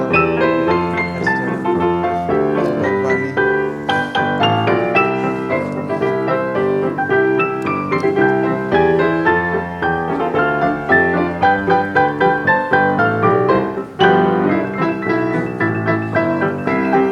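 Piano playing a busy Christmas arrangement in many quick notes, with a momentary break about fourteen seconds in before it comes back in strongly.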